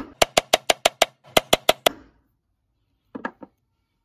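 Claw hammer tapping a nail head that is balanced on a lost-head nail, using the spare nail as a punch to sink the first into a timber block: about a dozen light, quick metal-on-metal taps, about six a second, stopping about two seconds in. A few faint clicks follow about three seconds in.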